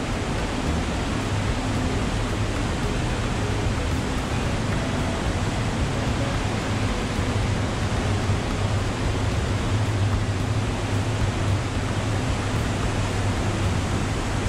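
Steady rushing noise of wind and sea on the open deck of a moving cruise ship, with a low rumble underneath and no distinct events.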